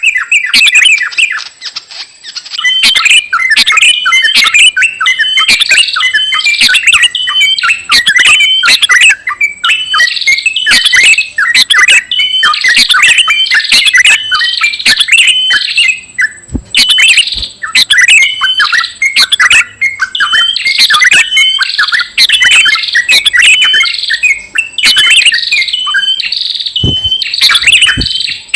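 Small-bird lure call (pikat): loud, rapid high-pitched chirps and twitters repeating in quick phrases, broken by short pauses a couple of times.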